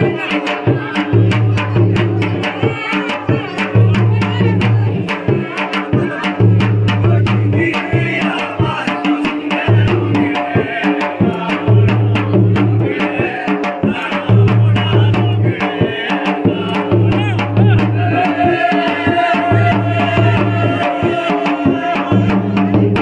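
Jaunsari harul folk music: drums beat a steady repeating rhythm while a group of voices sings along.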